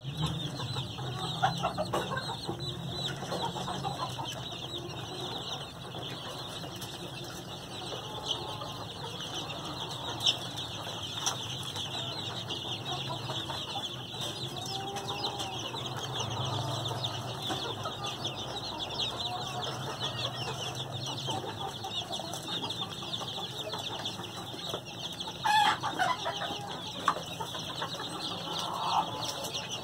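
A brood of bantam chicks peeping continuously, many high calls overlapping, with a hen clucking now and then among them and a louder burst of calls near the end.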